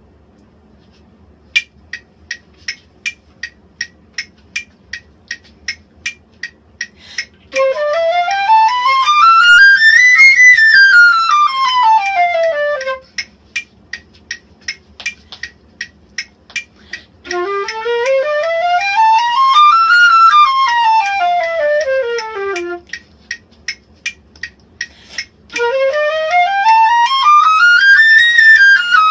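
Flute playing scales, each climbing about two octaves and straight back down, three times, with a metronome ticking about three times a second before and between the scales.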